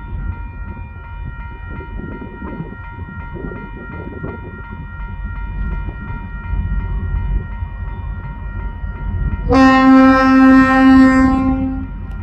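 A diesel-hauled coal train rumbling through a level crossing while the crossing's warning bell rings steadily, about two strokes a second. About nine and a half seconds in, the lead DQ-class diesel locomotive sounds its horn in one loud blast of about two and a half seconds.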